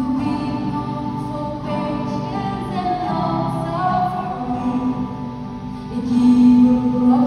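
A woman singing a worship song live, accompanying herself on a strummed acoustic guitar, with long held notes.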